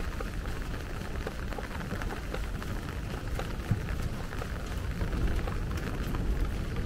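Steady light rain falling on wet paving, with many small drop ticks, over a low steady rumble.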